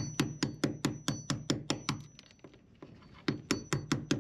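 A hammer taps a chisel in quick, even strokes, about five a second, chiseling around the edge of an engine raw-water intake strainer on the hull bottom. The tapping pauses for about a second midway and then resumes, with a faint high ringing tone underneath.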